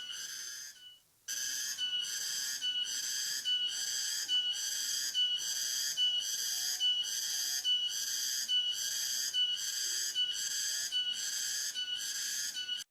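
A high-pitched whistling tone with several overtones, repeating evenly about three times every two seconds, with a short break about a second in.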